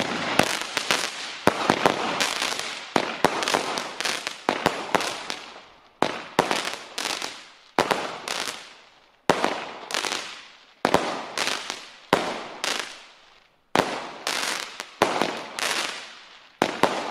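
Consumer firework battery (the Discovery cake) firing shot after shot, about one a second at uneven spacing, each a sharp bang that trails off over about a second.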